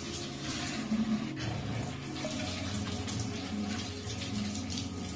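Kitchen tap running into a stainless steel sink while hands are rubbed and rinsed under the stream.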